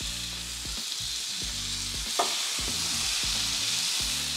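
Bacon strips sizzling and frying on a Ninja Foodi electric griddle plate preheated to 400°F, a steady hiss as fresh strips hit the hot surface. There is a brief click about two seconds in, and background music with a steady rhythm runs underneath.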